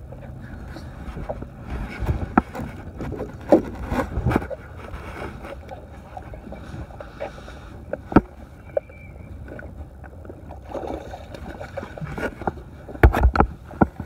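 Small boat sitting on the water, with water splashing against the hull and irregular knocks and clunks from gear being handled on board. The loudest knocks come in a quick cluster near the end.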